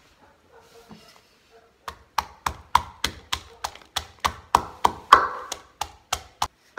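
Pestle pounding shallots and garlic in a mortar set on a tiled floor: even, sharp knocks about three a second, starting about two seconds in.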